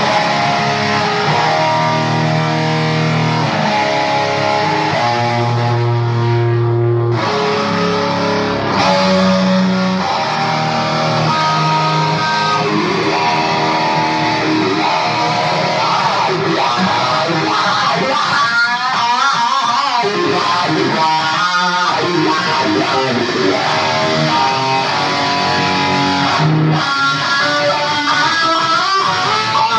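Electric guitar, a Gibson Les Paul Custom played through a Dunlop Cry Baby KH95 wah pedal: held notes and short phrases, with the wah sweeping the tone up and down in a wavering, vocal way in the middle stretch.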